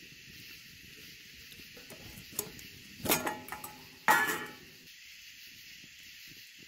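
Stainless steel cookware clanking on a metal grill grate over a fire: a few light clicks, then two loud clatters about three and four seconds in. A steady high hiss runs underneath.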